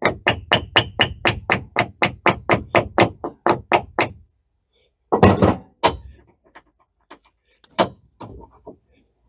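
Hammer tapping a tight-fitting bolt and door bracket into place on a metal roll cage: a quick, even run of about five light blows a second for some four seconds, then two heavier blows after a short pause. Scattered light metal clicks follow as the bracket is handled, with one more knock near the end.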